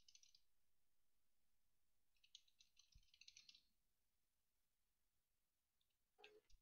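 Faint crinkling of a foil trading-card pack wrapper being torn open and pulled apart by hand, in three short spells with near silence between.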